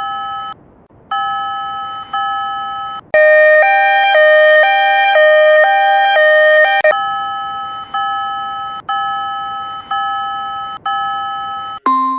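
Railroad level-crossing warning bells: an electronic crossing bell dings about once a second, each ding fading away. From about 3 to 7 seconds in, a louder crossing signal takes over with quick alternating two-pitch dings, then the slower bell returns.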